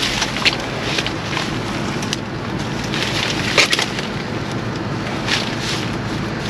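Plastic bags and bundled long beans rustling and crinkling as gloved hands lift and sort them in a dumpster, with a few sharper crackles over a steady low background hum.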